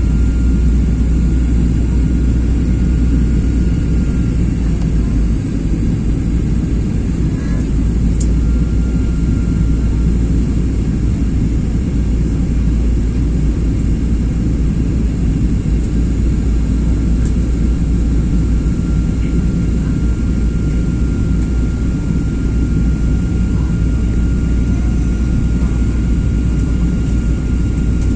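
Passenger airplane landing: steady, loud, deep engine and airflow rumble, heard from inside the cabin, with a faint steady high whine over it.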